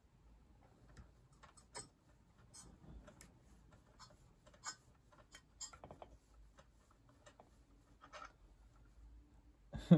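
Faint, irregular small clicks and scrapes of a pointed metal tool picking at a crimped wire connector, trying to pry it open, with a sharper knock near the end.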